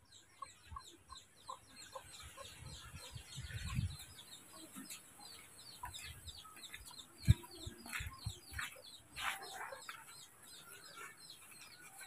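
Birds chirping over and over in short high falling notes, with occasional clucking, plus footsteps and a single sharp knock about seven seconds in.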